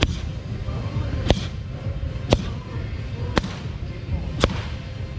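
Boxing gloves smacking into focus mitts during a pad-work warm-up: five sharp slaps about a second apart, over a steady low background rumble.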